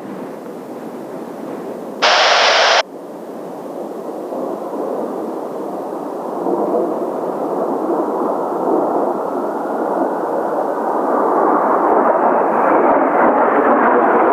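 Jet noise from Blue Impulse Kawasaki T-4 trainers' twin turbofans, growing steadily louder and brighter over the last several seconds as the jets approach. About two seconds in, a short burst of air-band radio static cuts in and out abruptly.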